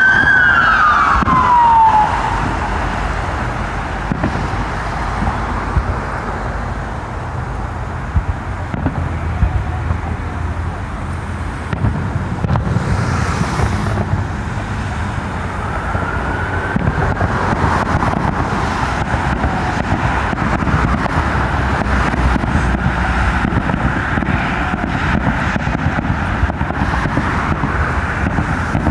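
A loud whistling tone sliding down in pitch over about two seconds at the start. Then a steady low rumble of road traffic, with a few faint pops of distant fireworks. A fainter whistling tone rises and falls near the middle and later holds steady.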